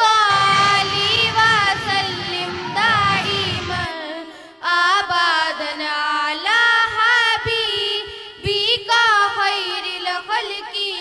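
Background music: a solo voice singing a slow melody with long, wavering held notes, breaking off briefly about four seconds in.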